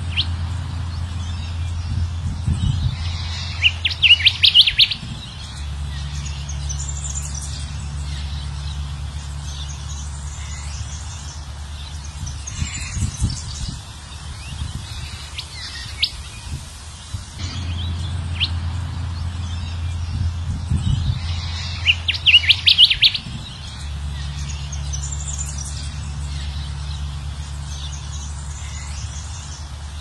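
Recorded song of a kancilan emas (golden whistler), played as a training and lure call: scattered high chirps with a dense burst of rapid trilled notes about four seconds in, the same sequence coming round again about eighteen seconds later. A steady low hum runs underneath.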